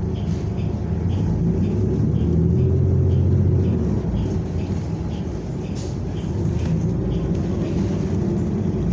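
Cabin sound of a New Flyer Xcelsior XN40 natural-gas city bus under way: a steady engine and road rumble that builds up, eases off about halfway through, then picks up again. A light ticking repeats about three times a second.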